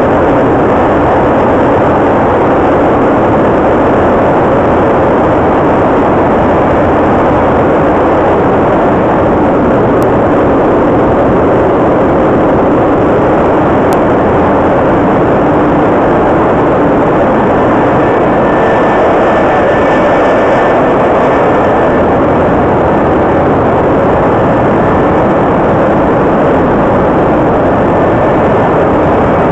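GE LM1500 industrial gas turbine running steadily, very loud and close, with no change in speed. Muffled, heard through a foam-wrapped microphone worn under a jacket.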